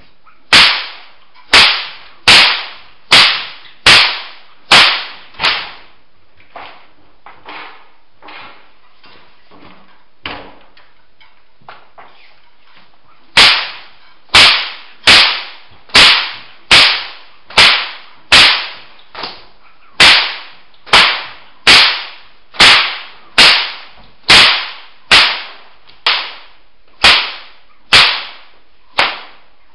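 A whip cracked over and over in underhand and sidearm flicks: sharp cracks about one every 0.8 s, each trailing a short echo. A stretch of a few weak, softer cracks comes in the middle, before the steady run of loud cracks resumes.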